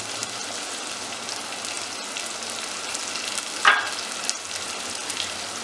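Thick onion-tomato masala curry sizzling and bubbling in its oil in a steel pot over a high flame, with one brief louder sound about three and a half seconds in.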